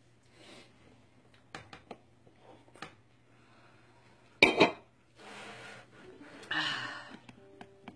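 Handling noise before playing. There are scattered small clicks and knocks, a loud sharp knock about four and a half seconds in, and a couple of breathy rustles, all over a faint steady low hum.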